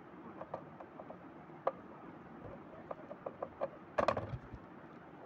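Light clicks and taps of a plastic toy RC car's chassis being handled, with a short cluster of louder knocks about four seconds in.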